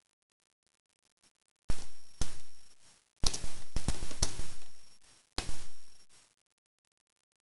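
Gift wrapping paper crinkling and rustling in four sudden bursts, each starting sharply and fading over about a second, after a silent first second and a half.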